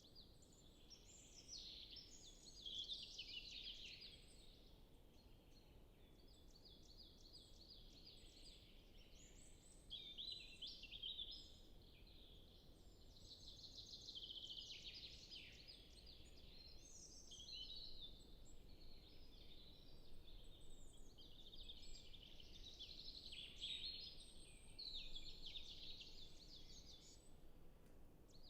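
Several songbirds singing together in a forest, faint and overlapping. Rapid repeated-note phrases alternate with trilled, warbling phrases every few seconds.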